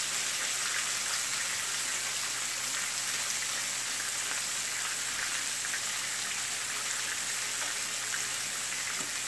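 Pieces of seasoned butterfish shallow-frying in hot oil in a skillet: a steady sizzle.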